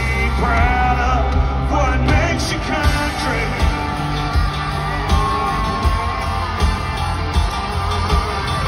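Live country-rock band playing an instrumental stretch between sung lines: electric guitar over drums and bass, with a voice whooping and yelling over the music in the first few seconds.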